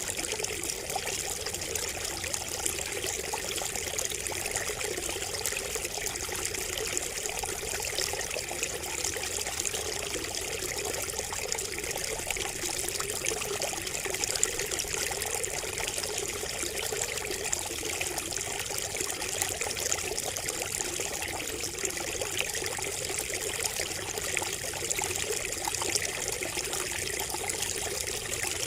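Water trickling and splashing steadily from a bamboo spout, an even, unbroken running-water sound.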